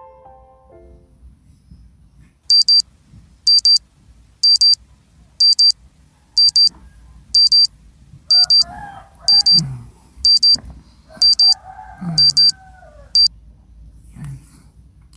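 Alarm clock beeping loudly in quick high double beeps, about one pair a second, around a dozen times before it stops. A man groans drowsily twice as it rings, waking up.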